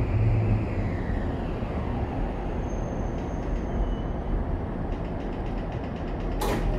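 Toei 5500 series electric train slowing into a station, heard inside the car: the Mitsubishi full-SiC VVVF inverter's whine falls in pitch and fades within the first second, leaving a steady low running rumble. Near the end, as the train stops, there is one short sharp hiss.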